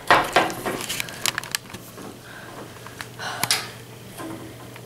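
Tabletop handling sounds: a cap being twisted off a small glass hot sauce bottle with a short scraping burst and a few light clicks, then the cap and a metal spoon handled on the table.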